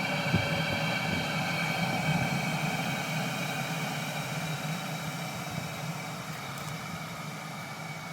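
12 V diesel air heater running, a steady fan hum and whine with several fixed tones, slowly getting quieter.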